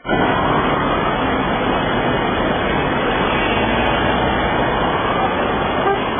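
Steady outdoor street noise: traffic and the murmur of a crowd on foot.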